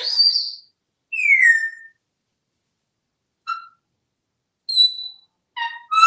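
African grey parrot whistling: about six short separate whistles, the first sliding up, the second sliding down, then shorter high notes, with two close together near the end.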